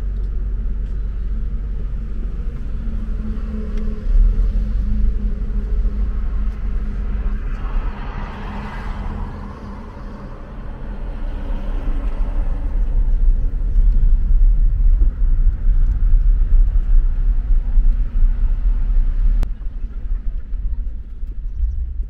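Road vehicle noise: a continuous heavy low rumble, with a swell of rushing noise about eight to nine seconds in, and the rumble growing louder in the second half.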